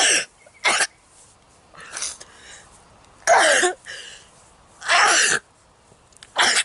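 A person sneezing over and over in an allergy sneezing fit: about five loud sneezes, each short and sharp, a second or more apart, with a weaker one in between.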